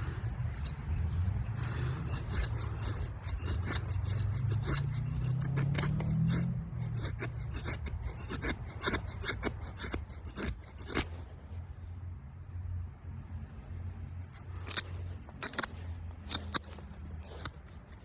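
Victorinox Venture knife shaving a wooden stick into feather curls: steady scraping of the blade along the wood at first, then from about halfway a run of sharp, short cutting strokes.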